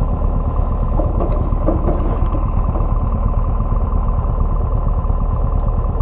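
Motorcycle engine running steadily with a low rumble.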